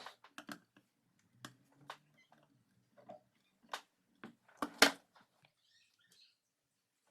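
Irregular light clicks, taps and small knocks of hard objects being handled, with one sharper knock near the five-second mark.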